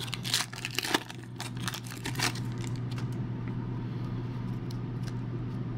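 Silvery foil wrapper of an Upper Deck basketball card pack crinkling and tearing open in the first two seconds, then a few faint ticks as the cards are handled, over a steady low hum.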